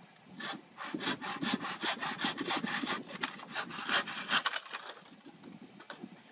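Hand saw cutting through a dead wooden log in quick, even back-and-forth strokes, about four to five a second, which stop about five seconds in.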